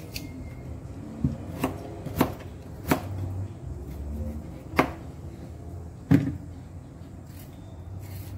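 Chayote (cho-cho) being cut and cored by hand with a small knife, with about six sharp clicks and knocks spread through as the knife works and pieces land in a metal bowl.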